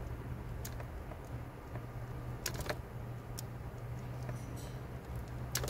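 A handful of small, scattered clicks and snips from a hand tool stripping the plastic insulation off car wiring, over a steady low hum.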